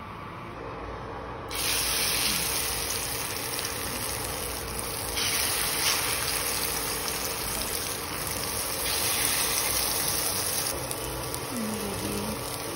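Egg-battered eggplant frying in hot oil in a pan on an induction cooktop, sizzling steadily. The sizzle starts suddenly about a second and a half in.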